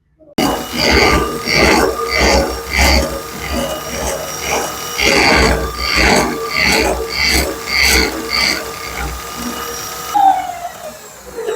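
Metal being worked by hand in rhythmic back-and-forth strokes, about one and a half a second, with a faint ringing to each stroke. The strokes stop about ten seconds in.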